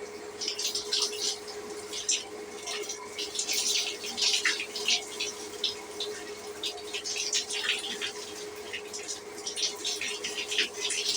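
Shower running: water spattering unevenly, with a steady hum underneath.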